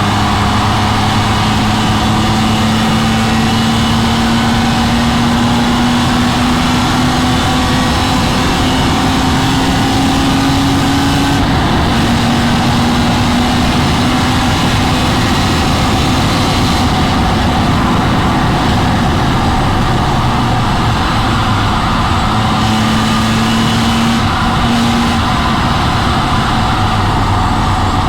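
BMW M3 E46's 3.2-litre straight-six heard from inside the car under hard driving on track, its pitch climbing slowly for about eleven seconds, then dropping at a gear change, with loud road and wind noise throughout.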